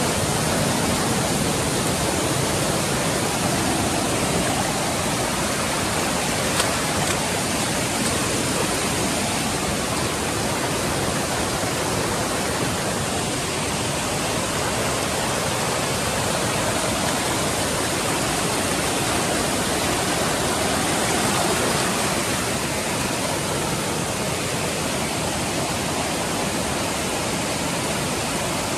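Steady loud rush of flowing water, like a fast mountain stream or river, unchanging throughout.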